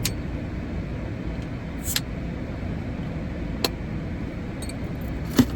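Steady low rumble of a motor vehicle, with three sharp clicks over it, the loudest near the end.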